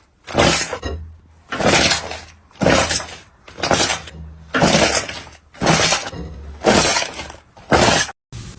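Slime being worked in repeated crackling crunches, about one a second, eight in all. Near the end the crunching stops briefly and a steady hiss begins.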